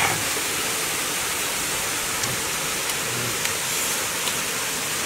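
Steady rushing of a waterfall, an even noise with no change.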